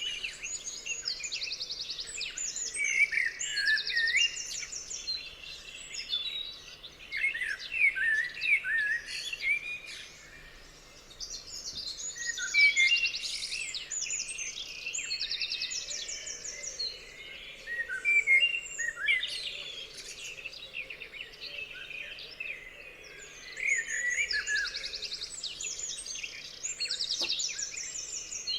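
A chorus of several songbirds singing at once, a dense mix of chirps, quick whistled sweeps and rapid trills that comes in waves, swelling and easing every few seconds.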